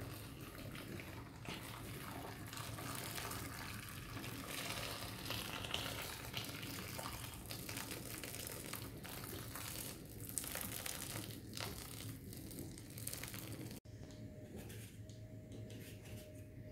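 Boiling water pouring from an electric kettle onto peaches in a plastic bowl, a steady splashing stream to scald the fruit for skinning. It breaks off suddenly about fourteen seconds in, leaving a quieter stretch with a faint steady hum.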